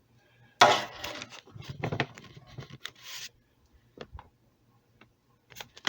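A small hand-cut wooden piece handled and rubbed against the wooden bass body: a sharp knock about half a second in, then scattered light scrapes and clicks.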